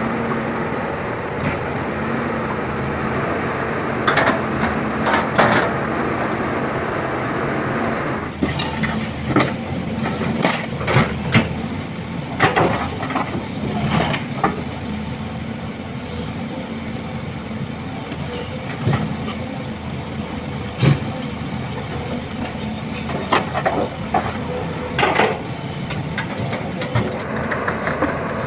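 Volvo EC210 excavator's diesel engine running at a steady speed, with repeated short metal clanks and clatters of the bucket and track chain as the thrown track is worked back onto the undercarriage. The clanks are thickest in the middle part.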